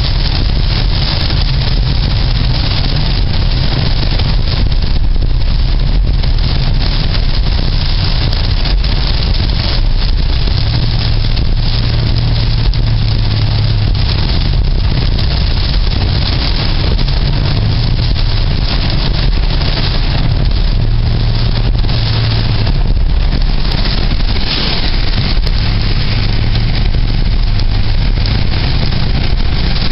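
Loud, steady rush of a car on the move, with a low engine and road drone that swells and fades every few seconds, mixed with wind noise.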